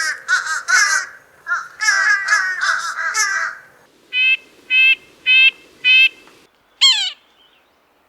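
Example recordings of nasal bird calls. A quick run of harsh, nasal calls comes first, then four evenly spaced nasal notes a little over half a second apart, then a single downward-sliding call.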